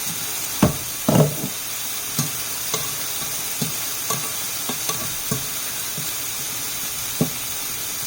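Food frying in a pan with a steady sizzling hiss, while kitchen utensils knock lightly against the cookware about nine times, the loudest clatter about a second in.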